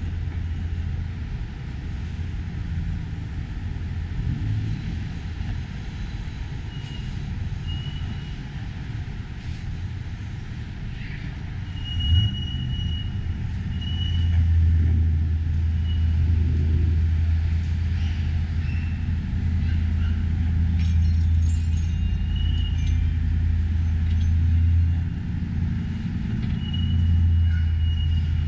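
Street traffic ambience: a steady low rumble of vehicles, with a few faint high squeaks now and then and a sharp knock about twelve seconds in.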